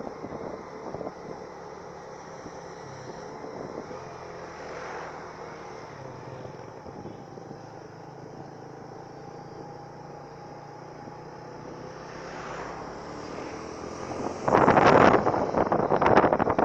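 A truck's engine running steadily. About fourteen and a half seconds in, a much louder rush of noise with clattering sets in and carries on.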